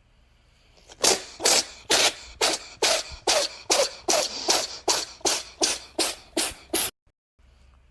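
A cat sneezing in a rapid fit: about fifteen short sneezes at two to three a second, starting about a second in and cutting off suddenly near the end.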